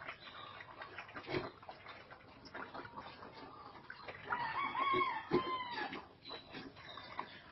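A rooster crows once, a long call in a few arched segments about halfway through. Scattered clicks and shuffling run underneath.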